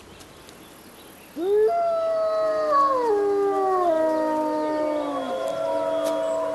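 Gray wolves howling in chorus. Starting about a second and a half in, several overlapping howls swoop up, then slide down in steps and hold at different pitches.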